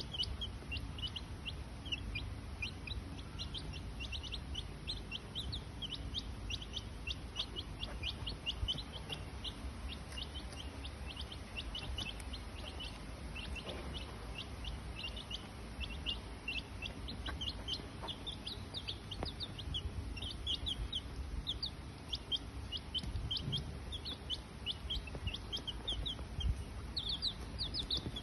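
Rapid, continuous high-pitched chirping: many short peeps a second, with a steady low rumble underneath.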